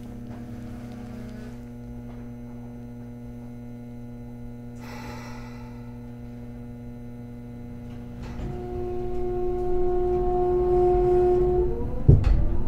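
Hakodate City Transportation Bureau 3000 series tram heard from inside the car: a steady electrical hum while it stands, a short hiss about five seconds in, then a louder steady tone from about eight seconds. Near the end a clunk, and the motor whine starts rising as the tram pulls away.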